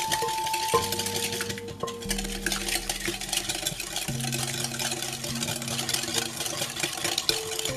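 A wire whisk beating egg and sugar in a glass bowl: a rapid, continuous scraping and clicking of the wires against the glass. Background music with long held notes plays underneath.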